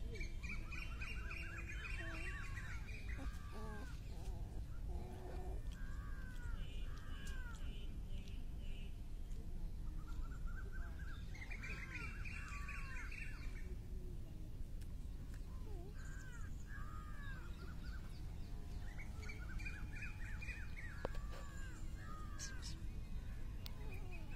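Animal calls: clusters of short, high, arching chirps and squeaks that come in bursts every few seconds over a steady low rumble.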